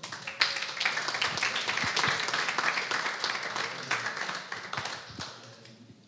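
Audience applauding, the clapping starting at once and dying away near the end.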